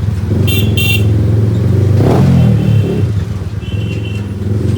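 Yamaha MT-15 motorcycle engine running through a loud aftermarket exhaust, with a rev that swells and falls away about two seconds in. Two short horn toots sound about half a second in, and a fainter horn near the end.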